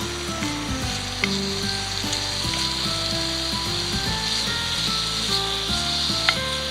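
Food sizzling steadily in a frying pan over a wood fire, with a couple of light clicks like a utensil touching the pan. Background music with held notes plays underneath.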